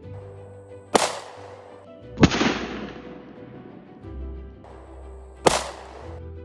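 Two sharp 9mm pistol shots from a Taurus G2C, about four and a half seconds apart. About a second after the first comes a louder, deeper, drawn-out boom that dies away. Background music plays underneath.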